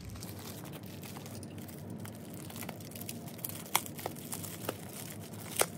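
Plastic bubble mailer crinkling as hands handle it and peel back its adhesive flap. Two sharp crackles, one about two-thirds of the way through and one near the end, stand out over the steady rustle.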